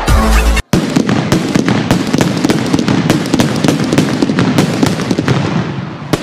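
A chain of firecrackers going off in a rapid, irregular crackle of sharp pops, starting just after a snatch of intro music cuts off under a second in.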